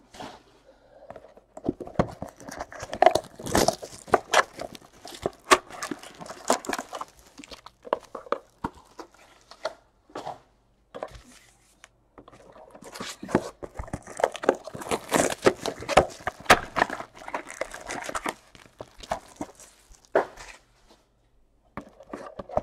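Plastic shrink wrap crinkling and tearing as trading-card boxes are unwrapped, with cardboard boxes and foil card packs handled and set down in irregular bursts of rustles and clicks and a couple of short pauses.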